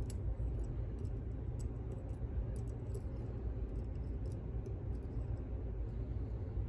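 Scattered faint small clicks of lock pins, springs and tools being handled while a pin-tumbler lock is taken apart, over a steady low hum.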